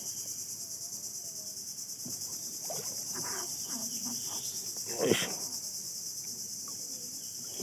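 A steady, high-pitched chorus of insects with a fast, even pulse, with faint voices in the middle and a single short knock about five seconds in.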